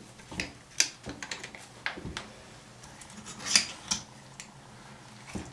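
Irregular light metallic clicks and scrapes of needle-nose pliers and a small pick working on a brake caliper's piston and its rubber boot, as the piston is unthreaded for a rebuild.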